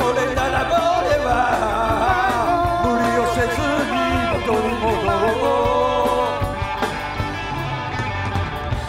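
Rock band playing live: a singer holding long sung notes over electric guitar, bass guitar, drums and keyboard, heard from the audience.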